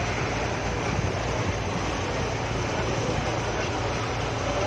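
River ferry's engine running steadily: a constant low drone under an even rushing noise.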